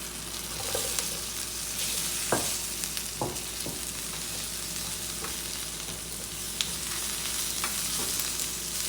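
Garlic and red pepper sizzling in a hot pan as they are stir-fried, with a steady hiss and several sharp clicks of the stirring utensil against the pan.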